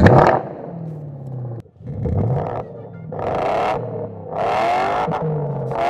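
EngineVox active exhaust sound generator, a speaker stand with subwoofer, playing a synthesized engine sound for one of its presets: a loud burst at the start, then three revs, each falling back in pitch toward idle.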